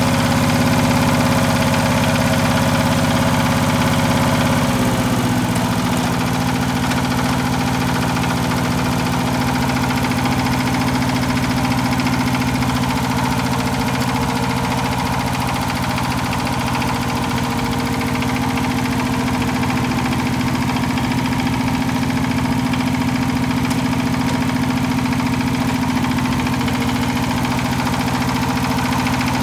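Yanmar 9-horsepower diesel engine of a YC90-G walk-behind tractor running steadily. About five seconds in its speed drops a little, and it settles and runs on at the lower speed.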